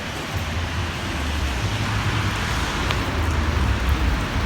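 Steady hiss of heavy rain over the low rumble of a car moving slowly.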